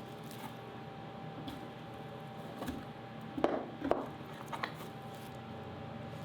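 A few light knocks and clicks, a tight pair about three and a half seconds in and another near four and a half, over a faint steady hum.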